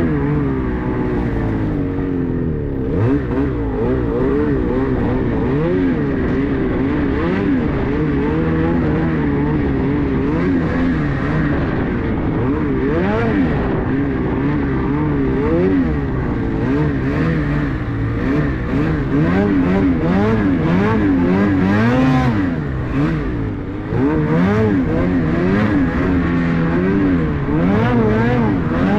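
Ski-Doo 850 snowmobile's two-stroke engine under the rider, revving up and down over and over as the throttle is worked through deep powder, its pitch rising and falling every second or so.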